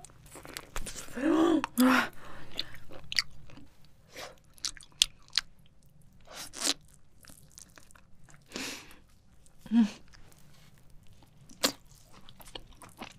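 Close-miked eating of grilled octopus leg: biting and chewing the tentacle meat, with wet smacking and scattered sharp clicks from the mouth. There are a couple of brief hummed sounds from the eater, about a second and a half in and again about ten seconds in.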